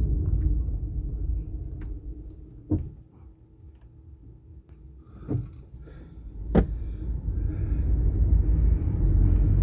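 A car driving in town, heard from inside the car: low engine and road rumble that dies down about three seconds in, as if slowing or pausing, and builds again after about seven seconds. Three sharp clicks or knocks come at intervals while the rumble is low.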